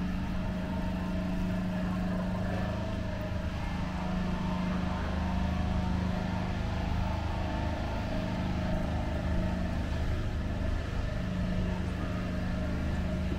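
A motor vehicle engine running steadily in street traffic, a low even hum.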